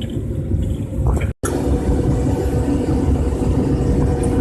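Car cabin noise while driving: a steady low rumble of engine and road. The sound cuts out completely for a moment about a second and a half in.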